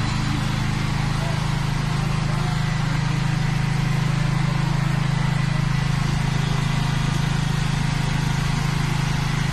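Four-cylinder Perkins diesel engine of a 22 kVA generator set running at a constant speed, a steady low drone that does not change.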